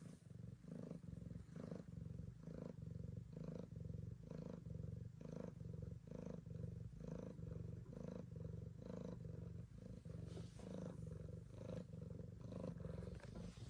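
Domestic cat purring while being stroked: a low rhythmic rumble that pulses about twice a second.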